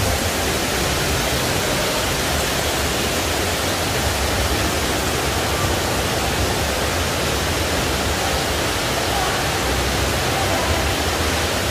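Indoor artificial rock waterfall: water falling and splashing onto rocks and into a pool, a steady, even rush.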